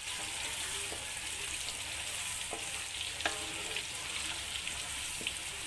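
Shrimp sizzling steadily as they deep-fry in hot oil in a metal wok, stirred with a wooden spatula. One sharp knock about three seconds in.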